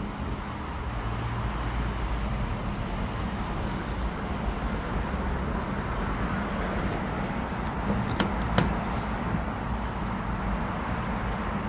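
Steady low hum and background noise, with two sharp clicks about half a second apart roughly eight seconds in.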